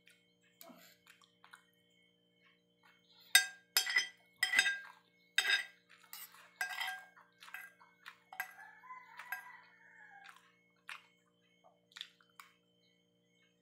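Metal spoon and fork clinking and scraping against a ceramic plate while eating, with a cluster of sharp, ringing clinks about three to six seconds in and lighter taps after.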